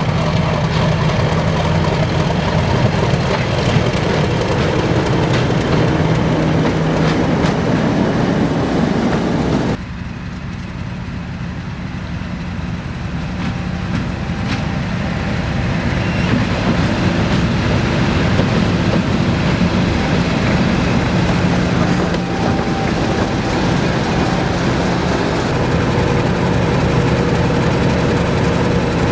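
Diesel locomotive engine running steadily with a low, even drone; the sound changes abruptly about ten seconds in, then carries on.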